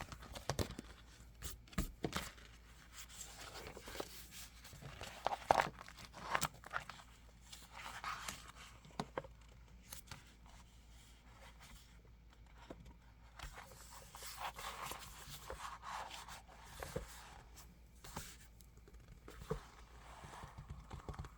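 A plastic planner cover being handled and pushed onto a planner: irregular crinkling and scraping of plastic with scattered small taps and clicks.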